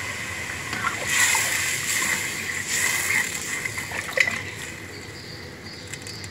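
A spoon stirring the watery chickpea masala in an aluminium pressure-cooker pot, the liquid sloshing and splashing in swishes, with a sharp clink of the spoon against the pot about four seconds in.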